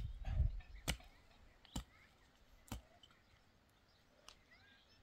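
Three sharp knocks, evenly spaced at about one a second, then a faint tick near the end.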